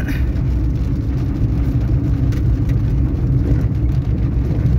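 Car driving on a wet road in the rain, heard from inside the cabin: a steady low drone of engine and tyres.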